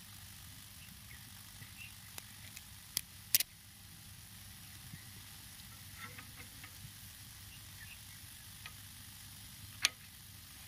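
A few sharp metallic clicks and taps of small fuel-line fittings being handled and fitted by hand on a power tiller's fuel pump: a hollow banjo bolt and air-bleed screw. The loudest taps come about three seconds in, and another comes near the end, over a faint steady low hum.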